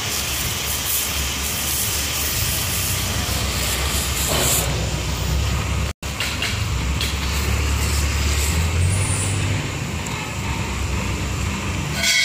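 A 150-bar pressure washer spraying snow foam onto a scooter: a steady hiss of spray over a low rumble. It breaks off for an instant about halfway through.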